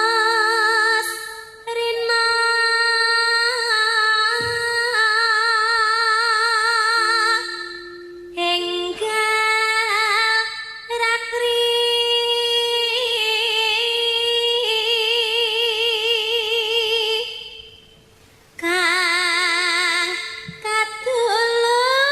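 Javanese sindhen (female gamelan singer) singing long held notes with strong vibrato, in phrases broken by short pauses, with a low steady note sounding beneath at times.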